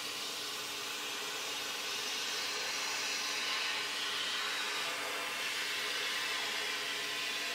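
Steady rushing hiss of an air nozzle cleaning loose powder off a laser-melted metal part inside a glovebox, with a steady hum under it.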